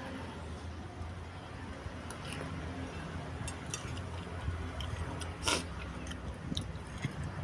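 Close-up eating sounds: chewing of small meatballs and noodles, with scattered soft mouth clicks and one louder, longer sound about five and a half seconds in, over a steady low hum.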